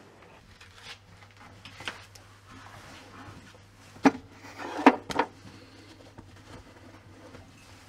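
Knocks and bumps from a cupboard and fuse box being handled, a few scattered light taps with two louder knocks about four and five seconds in, the second followed by a short clatter.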